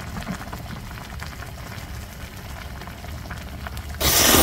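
A pot of soft-tofu doenjang ramyeon boiling, its broth bubbling and crackling steadily. About four seconds in, a much louder rushing noise cuts in suddenly.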